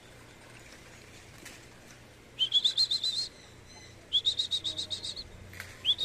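A bird singing three quick phrases of repeated high chirps, about eight notes a second, each note sweeping up at its start. The first phrase begins about two and a half seconds in.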